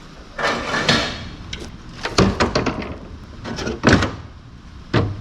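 A lorry trailer's rear door and top sheet being closed and fastened: a scraping rush, then three sharp bangs, the loudest about four seconds in.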